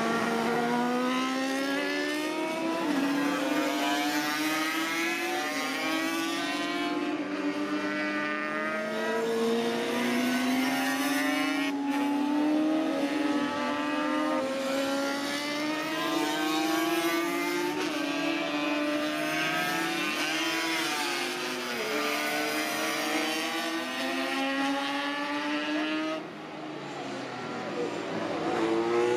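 Racing motorcycle engines running on the circuit, several engine notes overlapping and rising and falling in pitch as bikes accelerate and shift, with a brief drop in loudness near the end.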